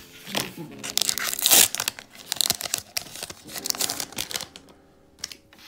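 Foil Pokémon booster pack crinkling and tearing as it is pulled open by hand. The rustling comes in irregular bursts, loudest about a second and a half in and dying down near the end.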